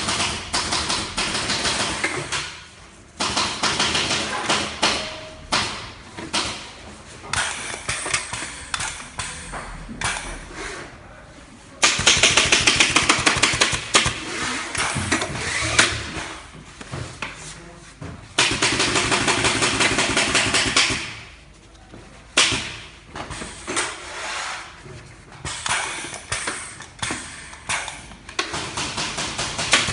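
Bostitch staple gun firing in runs of quick sharp clicks, with louder, denser runs near the middle and quieter gaps between.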